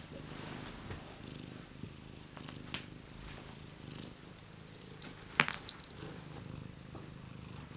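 Domestic cat purring in steady, even cycles. About five seconds in, a brief flurry of small clicks and jingles as the cat gets up and rubs against the cushion.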